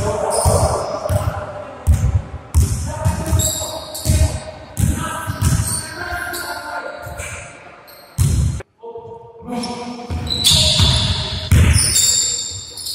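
Basketball dribbled on a hardwood gym floor: a run of repeated bounces, echoing in the large hall.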